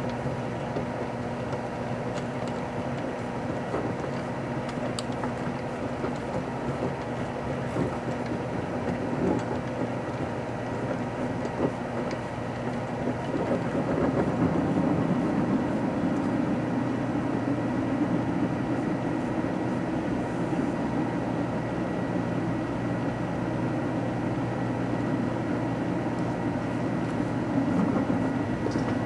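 Microwave oven running with an old computer mouse heating inside: a steady electrical hum with a faint high whine and a few sharp clicks. About halfway in, the hum grows louder and fuller and stays that way.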